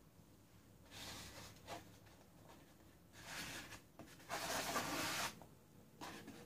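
A dog bowl slid and dragged across a wet-paint canvas and the plastic-covered table, giving a few short rubbing, scraping sounds; the longest and loudest lasts about a second, a little past the middle.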